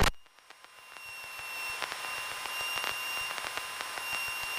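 Faint electrical static and hiss with a steady high whine and scattered clicks, right after loud cabin noise cuts off abruptly at the start.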